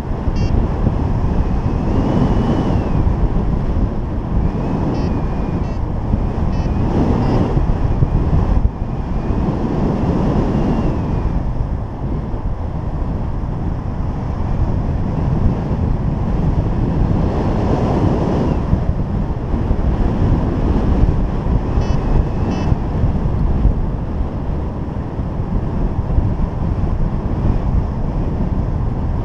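Wind buffeting an action camera's microphone in unpowered flight: a dense, loud rush that swells and eases. A few faint, short, high chirps come and go above it.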